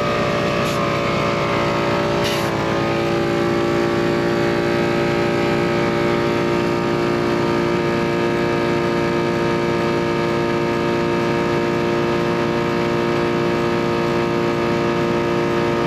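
A portable air compressor runs steadily as it pumps a 4WD tyre up through a hose and digital inflator gauge. Its motor hum dips slightly in pitch about two seconds in, with two short hisses in the first few seconds.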